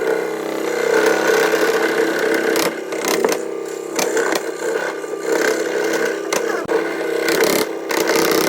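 Electric scroll saw running and cutting wood: a steady motor hum with the blade's rattle, and short clicks here and there.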